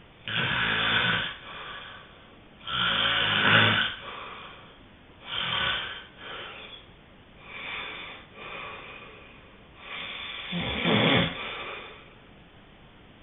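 A sleeping person snoring: five snores about every two to three seconds, some louder than others, with softer breaths between them.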